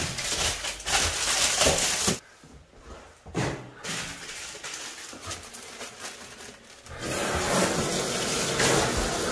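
Plastic vegetable packaging crinkling and rustling as it is handled, followed by scattered light clicks. About seven seconds in, a tap starts running steadily into a stainless steel sink as the vegetables are rinsed.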